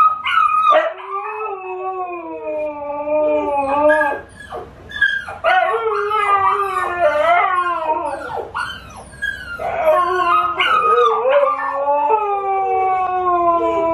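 Siberian husky howling in several long, wavering, drawn-out notes, set off by recorded puppies crying on a TV.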